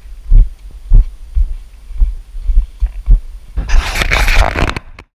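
Uneven dull thumps about twice a second, footfalls jolting a GoPro as someone runs, then about a second of loud rushing noise near the end that cuts off suddenly.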